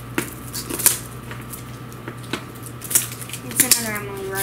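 Wrapping paper on a gift crinkling and crackling in someone's hands, in irregular sharp crackles. A person's voice sounds briefly near the end.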